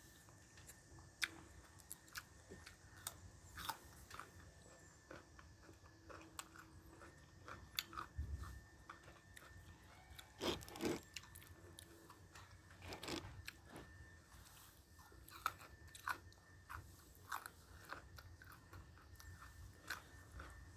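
A person biting and chewing food close to the microphone: irregular crisp crunches and wet mouth clicks, a few louder bites among softer chewing.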